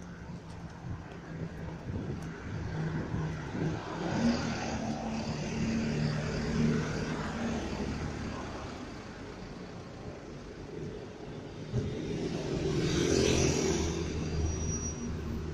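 Street traffic with vehicles driving past, including a city bus. One engine swells and fades about four to seven seconds in, and a louder vehicle passes near the end.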